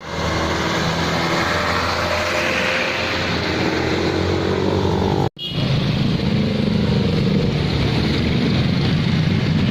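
Road traffic with motorcycle and car engines running and passing. The sound cuts out for a moment about five seconds in, then resumes.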